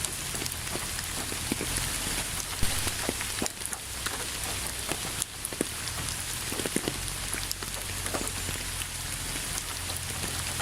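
Steady rain falling on a surface, a continuous hiss with many individual drops pattering and a few louder close drops standing out.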